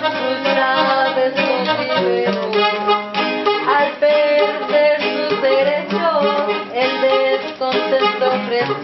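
A song with guitar accompaniment and a woman singing in Spanish.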